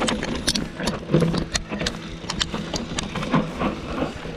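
Full-suspension mountain bike descending a rocky, rooty dirt singletrack: many quick clicks and knocks of the bike rattling over rocks and roots, over a steady low rumble of tyre noise.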